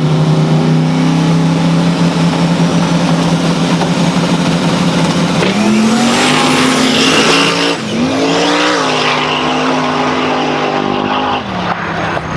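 Drag race car engine holding a steady drone, then revving up about halfway through with a loud rush of noise, the pitch dropping and climbing again before settling and easing off near the end.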